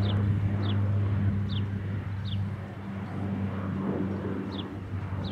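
A steady low mechanical hum, with a small bird repeating a short falling chirp about once a second.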